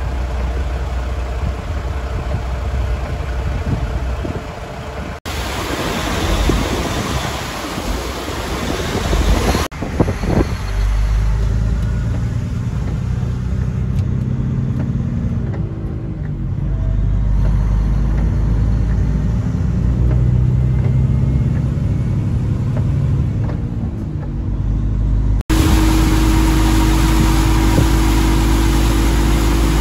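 A road train's truck engine running as it drives through floodwater, heard from the cab, with rushing water and wind noise strongest in the first ten seconds. From there on, a steady low engine drone dominates. The sound changes abruptly at several cuts between clips.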